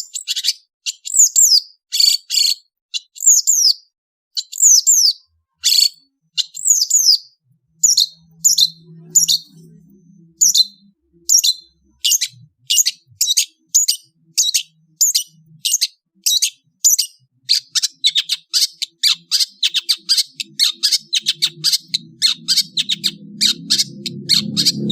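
Long-tailed shrike (cendet) calling: short, high, downward-sliding chirps repeated at intervals, quickening in the last third into a rapid run of chattering notes. A faint low sound runs beneath the second half, growing near the end.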